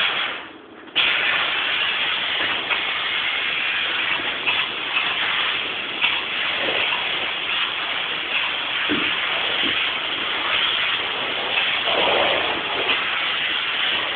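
Spray foam gun spraying soy-based polyurethane foam insulation: a steady hiss with a short break just under a second in.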